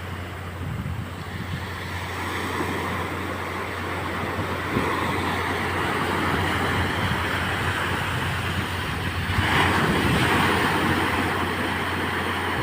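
Sea surf washing in a steady noisy rush, swelling louder as a wave breaks about ten seconds in.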